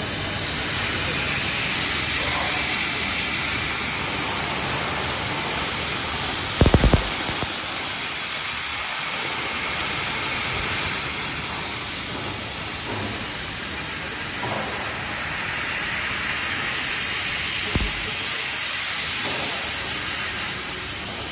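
Steady hiss of a fiber laser cutting machine working sheet metal, typical of the jet of assist gas blowing through the cut. A short cluster of low thumps comes about a third of the way in, and a single thump comes near the end.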